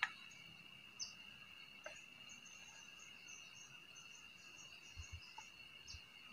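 Forest insects, crickets or the like, keep up a steady high-pitched drone, with short chirps above it. A few light clicks and soft taps sound through it.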